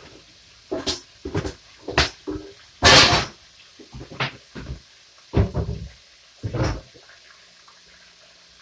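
Kitchen clatter: a string of about ten knocks and clanks as pans and utensils are handled, with one louder, longer clatter about three seconds in.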